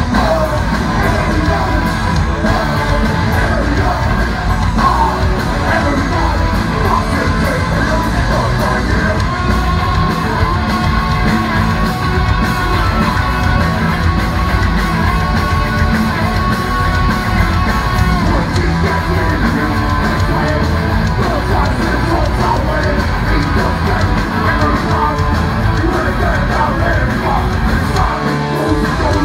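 Live oi!/street punk band playing a song: distorted electric guitars, bass and drums with shouted, sung vocals.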